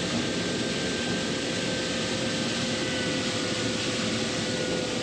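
Steady drone of a tractor running a grain bagger, with faint steady whines over an even mechanical noise.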